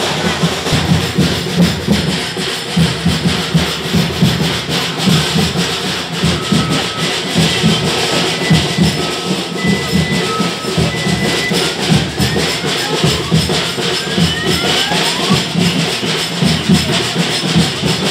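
A dense crowd with rhythmic drumming beating steadily throughout, and a few short steady tones about halfway through.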